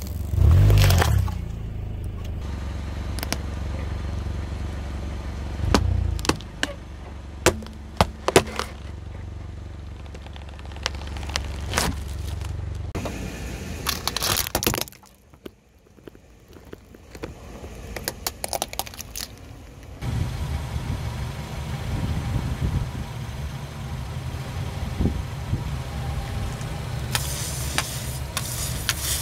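Car engine running at low speed while a tyre rolls over objects, crushing them with repeated sharp cracks and crunches. There is a brief lull about halfway through before the engine rumble resumes.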